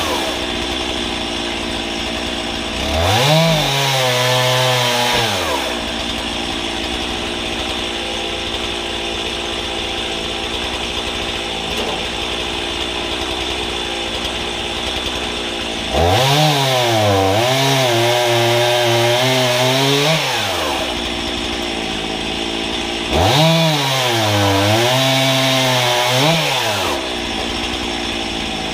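Gas chainsaw, mounted in a homemade guillotine frame, idling and then revving up three times to cut through logs: about 3 s in, 16 s in and 23 s in. During each cut the engine pitch rises and then sags and wavers as the chain bites into the wood.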